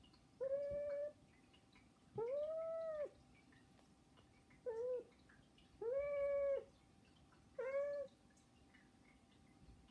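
Domestic cat meowing five times, begging for food; the second and fourth meows are longer, about a second each, and the third is short.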